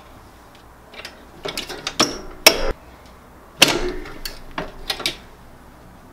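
Heat press being worked open and closed: a string of clicks and knocks, with two sharp clunks about two and a half and three and a half seconds in.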